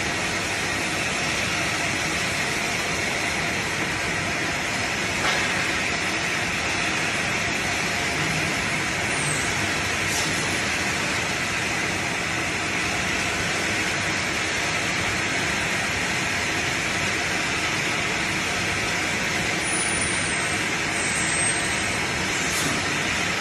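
ZJ-2500 container-sterilizing machine running with steady mechanical noise from its chain conveyor and drive, and a couple of faint clicks.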